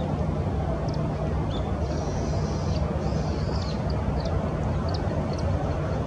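Steady low rumble of distant traffic. Faint, short high bird calls are scattered over it, with a brief twittering between about two and three and a half seconds in.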